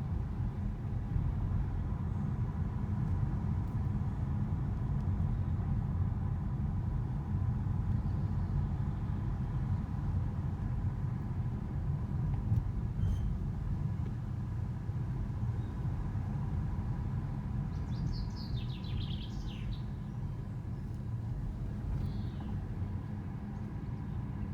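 Car driving steadily in second gear at about 22 km/h, a constant low rumble, with a thin steady high tone running through it: the squeak that shows up at this speed. Birds chirp briefly about two-thirds of the way in.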